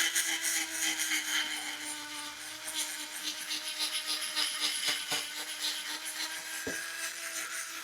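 Sanding the inside of an electric scooter hub motor's rotor where the magnets were glued, a rasping scrape in repeated strokes over a steady hum, louder in the first couple of seconds. The old glue is being cleaned off so the new magnets sit level and the fresh glue holds.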